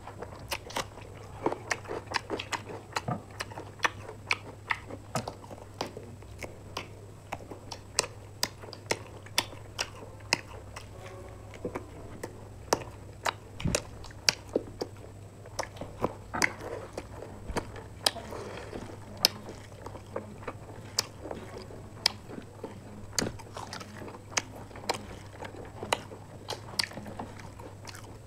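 Close-up eating sounds of two people chewing fried chicken and rice: wet chewing with frequent sharp, irregular mouth clicks and smacks. A steady low hum runs underneath.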